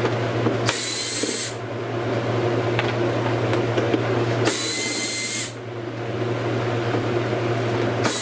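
Cordless drill/driver running in short bursts of about a second, twice, with a third starting at the very end, spinning off tail-light trim nuts that have been broken loose by hand. A steady low hum runs underneath.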